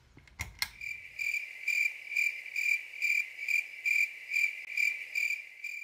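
Two quick clicks, as of a light being switched off, then a cricket chirping: one high trill pulsing about twice a second that cuts off abruptly. It is the stock night-time crickets sound effect added over the lights-out transition.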